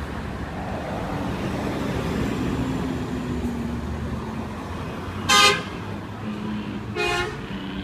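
Road traffic running steadily, with a vehicle horn giving two short toots, about five and seven seconds in; the first is the louder.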